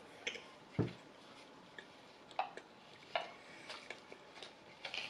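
Eating sounds: scattered soft clicks from chewing and from a fork working into a mini pie in its foil tin, with one dull thump just under a second in.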